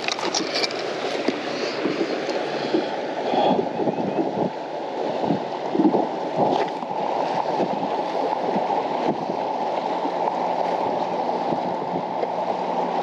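Steady gurgling and rushing of water around a bass boat. Short knocks and rustles from handling come in the first several seconds, and a faint steady hum sits under the water later on.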